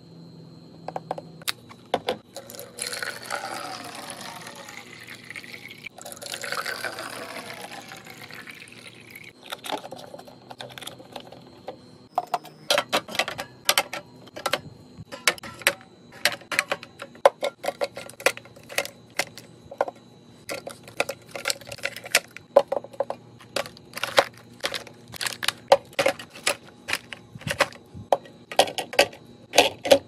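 Juice poured from a bottle into small plastic bottles, two pours in the first few seconds. From about halfway on, a rapid string of clicks and knocks as aluminium drink cans and plastic bottles are set into clear plastic fridge organiser bins.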